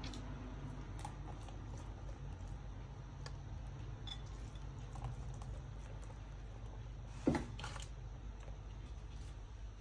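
Faint light ticks and pattering of grated cheese being scattered by hand onto a sauced pizza base on a parchment-lined baking tray, over a low steady hum. One louder knock about seven seconds in.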